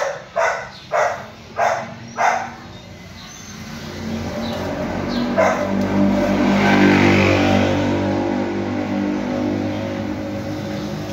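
A dog barks about five times in quick succession, then a motor vehicle's engine swells up and runs steadily, loudest around the middle and easing slowly toward the end.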